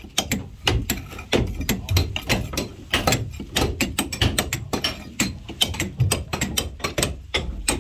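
Hand scrapers raking old caulking out of the plank seams of a wooden fishing boat's hull: a dense run of rapid, irregular scraping clicks.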